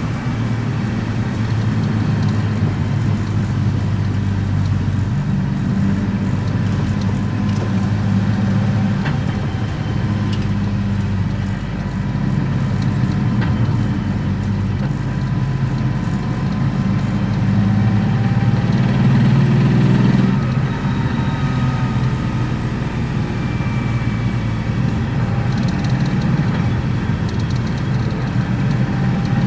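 BMW M50B25 straight-six with aftermarket headers and exhaust, running at fairly steady engine speed as the car drives along, heard from inside the cabin. The engine note shifts slightly about two-thirds of the way through.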